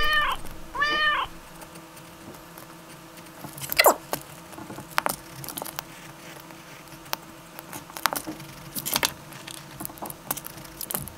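Two short meows in the first second or so, each rising then falling in pitch. Then scattered short scratches of a pencil sketching on paper, the strongest about four seconds in.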